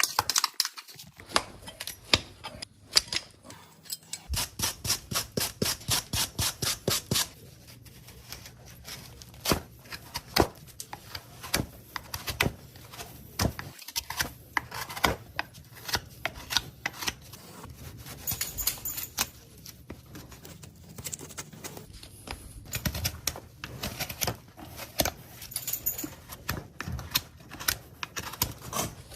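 Farrier's hand tools working a horse's hoof: a string of sharp scraping and clicking strokes, with a quick even run of about six strokes a second from about four to seven seconds in, then irregular strokes.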